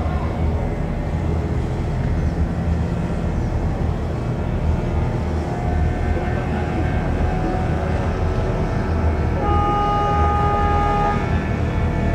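Steady low rumble of a boat's engine, with a horn sounding once for about a second and a half near the end.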